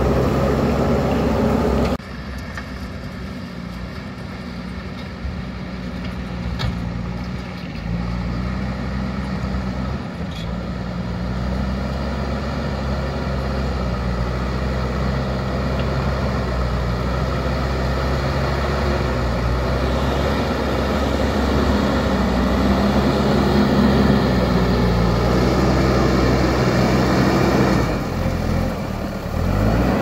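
JCB backhoe loader's diesel engine running steadily under load as the front bucket pushes soil, its pitch shifting a little as the load changes. The level drops suddenly about two seconds in and builds again slowly.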